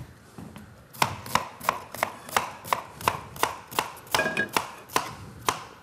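Kitchen knife slicing an onion on a cutting board: an even run of chops, about three a second, starting about a second in.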